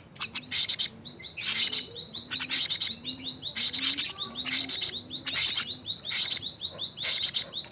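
A bird chirping in quick clusters, about one a second, with a thin steady high note between them.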